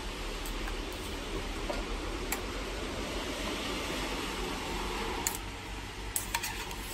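Cooked noodles lifted with chopsticks out of a stainless steel pot of water into a bowl: water splashing and dripping off the noodles, with a few light clinks of the chopsticks against the pot, over a steady hiss.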